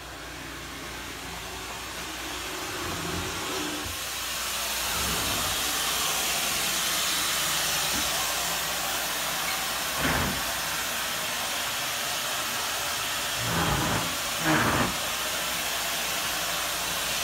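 Steady rushing hiss of air from water-damage drying equipment running, which grows louder over the first few seconds as the phone moves through the room. A few brief dull thuds about two-thirds of the way in and near the end.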